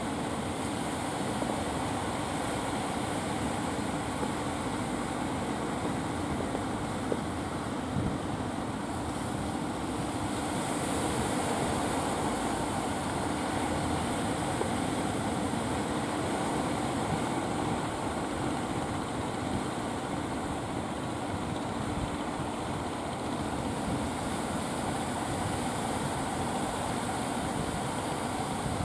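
Motorised outrigger fishing boat's engine running steadily, a constant low hum under an even noisy hiss.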